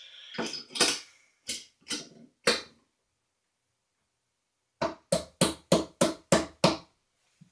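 Hand knocking on the inner cover of a Sloan Royal flushometer valve: after a brief rustle of the parts being set in place, a few separate knocks, then a pause, then a quick, even run of about eight taps, roughly three a second.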